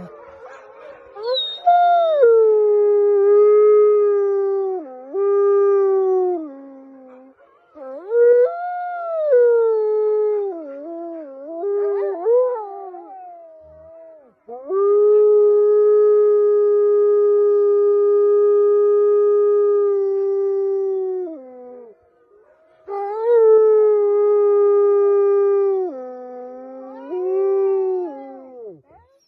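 A wolf-like canine howling: a string of howls that rise, slide and dip in pitch, with one long, steady howl of about seven seconds in the middle and several shorter, wavering howls before and after it.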